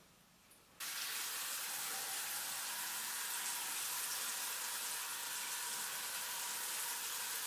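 Bathroom basin tap turned on about a second in, then water running steadily from it into the sink and over hands held under the stream.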